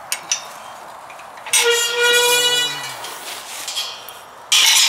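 Galvanised steel kissing gate being opened and swung: two sharp latch clicks, then a loud ringing metallic squeal lasting about a second as the gate moves, and a short loud clang near the end as it swings against its frame.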